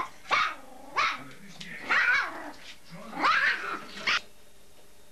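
German shepherd barking: five barks about a second apart, stopping suddenly a little after four seconds in.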